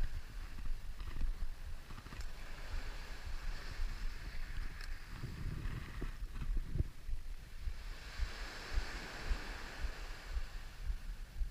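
Wind rumbling in gusts on the microphone, with a steady hiss that grows louder about two-thirds of the way in and a few faint clicks.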